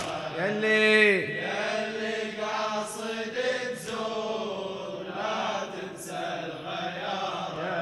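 A Husseini reciter's held final note falls away about a second in. Then a hall of male mourners chants the lament's refrain back in unison, a latmiya call-and-response.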